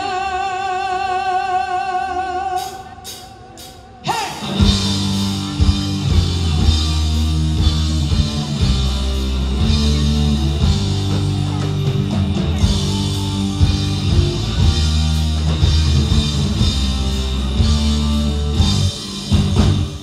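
A woman's voice holds a long sung note with vibrato and no backing. Then four quick clicks sound, and a live band comes in together about four seconds in: drum kit, bass, electric guitar and keyboard playing a rock-styled groove.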